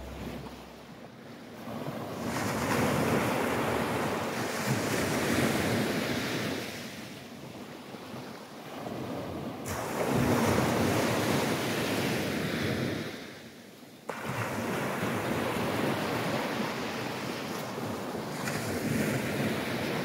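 Small waves breaking and washing up a sandy beach, the surf noise swelling and fading every few seconds.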